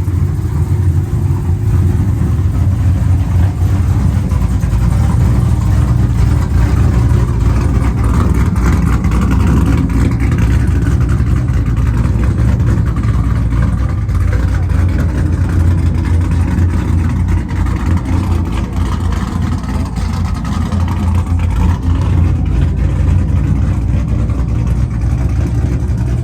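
Vehicle engine running with a loud, steady low rumble that swells twice.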